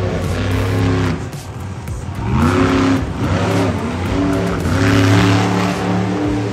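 Carolina Crusher monster truck's engine revving hard as the truck spins on the dirt. Its pitch rises and falls several times, and the loudest rev comes about five seconds in.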